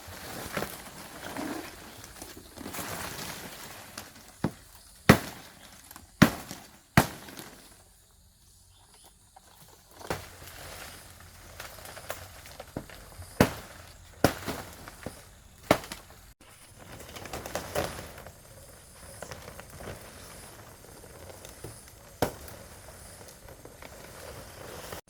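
A blade chopping palm fronds: sharp chops, several in quick succession and then more spread out, with leaves rustling between them.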